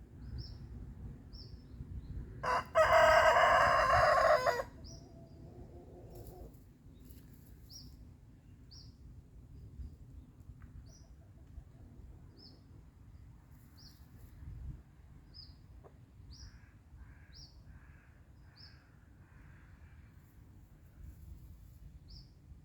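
Rooster crowing once, a loud cock-a-doodle-doo about two and a half seconds in that lasts about two seconds and trails off in a lower note. A small bird chirps at regular intervals throughout, and a run of five short calls comes near the end.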